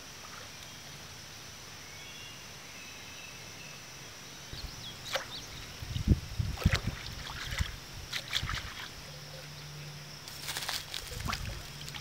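Pond water splashing and sloshing as a mug is dipped, swished and emptied at the water's edge: a run of separate splashes starting about four seconds in, with more near the end.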